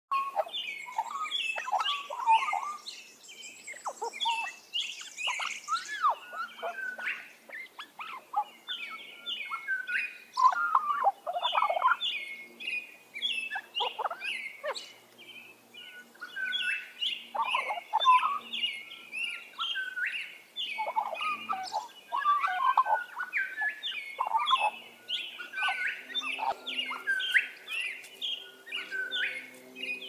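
Australian magpie singing: a long, nearly unbroken warbling run of quick notes that slide up and down in pitch, with brief lulls about a quarter and halfway through.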